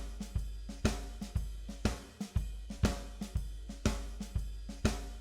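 Drum kit playing a steady beat of about two beats a second, with bass-drum thumps and cymbal and hi-hat strokes, as the instrumental lead-in of a worship song.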